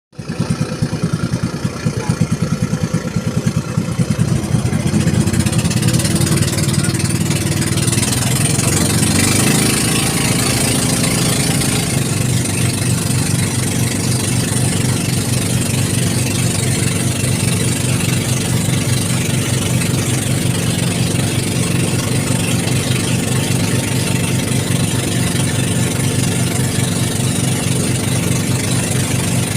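Small boat engine running with an even pulsing beat, picking up speed about eight to ten seconds in and then holding steady, with a steady hiss over it.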